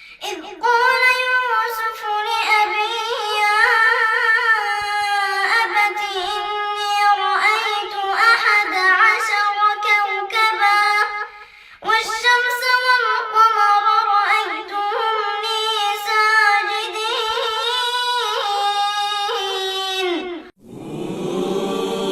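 A female voice reciting the Quran in melodic, ornamented tajwid style. There are two long drawn-out phrases with a brief breath between them, and the recitation ends about two seconds before the end.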